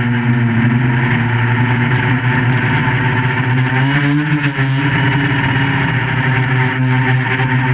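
Quadcopter's electric motors and propellers running with a steady, multi-tone buzz over a rushing haze. The pitch dips and climbs back about four seconds in.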